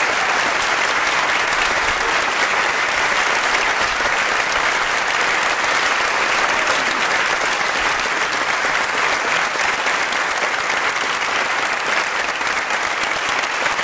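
Concert audience applauding steadily: dense, even clapping with no letup.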